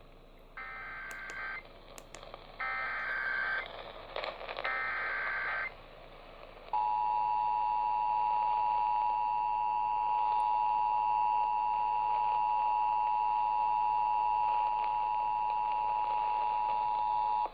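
Emergency Alert System broadcast over the radio: three short bursts of SAME digital header data screeching, coding a severe thunderstorm warning. About seven seconds in comes the EAS two-tone attention signal, held steady for about ten seconds until it cuts off.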